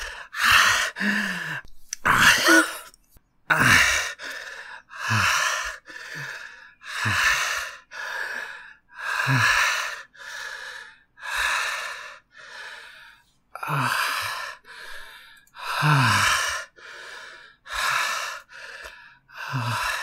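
Heavy, ragged gasping breaths in and out from a person recovering after retching and vomiting, performed as a sound effect. A big breath comes about every two seconds with smaller ones between, some ending in a short low groan.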